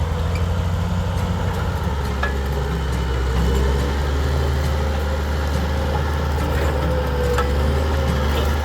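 Caterpillar D8R bulldozer's diesel engine running steadily with a deep drone, with a few faint clanks.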